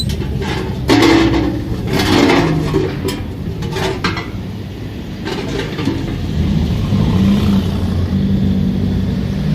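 A car engine running with a steady low hum that wavers in pitch in the second half, and several knocks of metal in the first few seconds.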